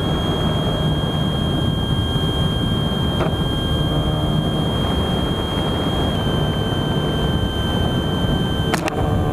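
Airflow rushing over a camera mounted on a small electric RC plane in flight, mixed with its motor and propeller drone and a steady high whine. There is a sharp knock about three seconds in and two more in quick succession near the end.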